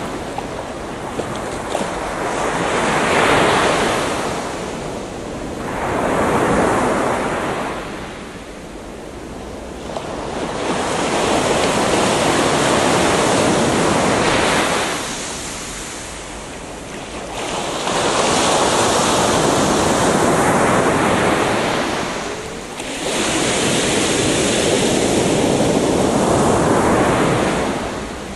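Ocean waves breaking on a beach, the surf swelling and washing back in surges every few seconds, with wind noise.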